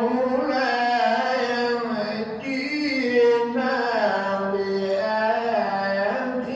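A man's voice chanting Quranic recitation in the drawn-out melodic tajwid style, holding long sung notes that bend slowly up and down in pitch.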